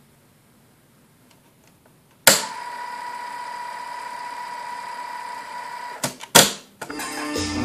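Cassette deck's play key pressed with a loud mechanical clack about two seconds in, then tape hiss with a steady high tone as the tape plays. Two more clicks come about six seconds in, and recorded music starts from the tape near the end.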